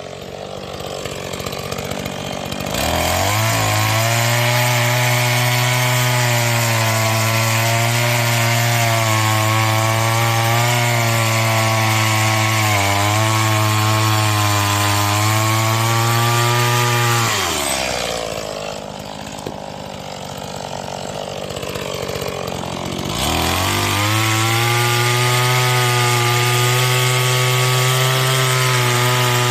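Stihl MS 180 two-stroke chainsaw held at high revs while cutting firewood. It revs up about three seconds in, drops back to a lower speed for about five seconds past the middle, then revs up again to cut.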